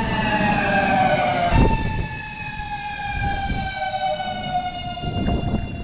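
Lastochka (Siemens Desiro RUS) electric train arriving, its traction drive whining in several tones that slide slowly down in pitch as it slows to a stop, over the low rumble of the wheels. A single knock about one and a half seconds in.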